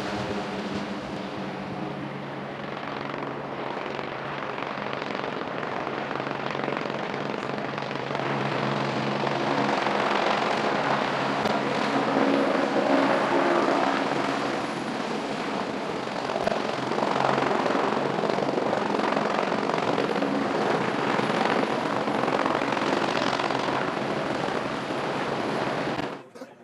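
Aircraft noise from a twin-engine turboprop plane and a hovering helicopter: a steady engine drone with a pitched hum at first that gives way to a loud rushing noise, cutting off suddenly near the end.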